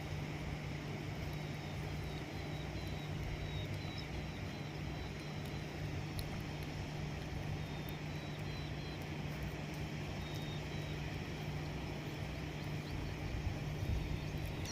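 Steady low mechanical hum, like a distant engine or motor running, over an even outdoor background noise. Faint short high chirps come and go in the first half.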